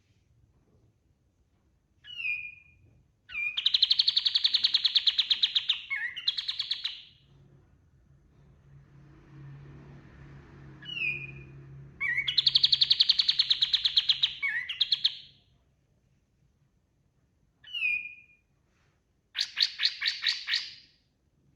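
Kapas tembak bulbul singing: short sliding notes, each followed by a long, fast, rattling trill. The full phrase comes twice, and a shorter trill follows near the end.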